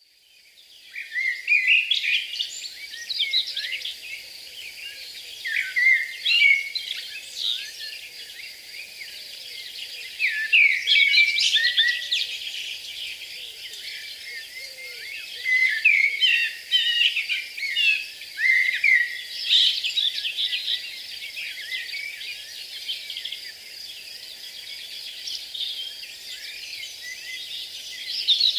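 Chorus of many small songbirds singing and calling at once: dense, overlapping chirps and trills that fade in over the first second and go on throughout.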